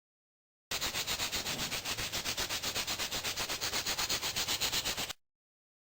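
Rapid, even back-and-forth abrasive rubbing strokes on the workpiece, starting and stopping abruptly.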